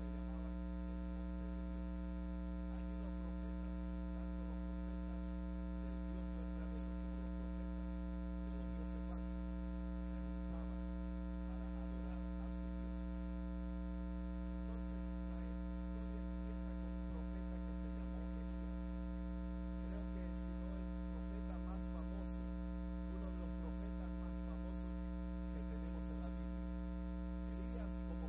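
Steady electrical mains hum in the live-stream's sound-system feed: a constant low buzz with many steady overtones that does not change.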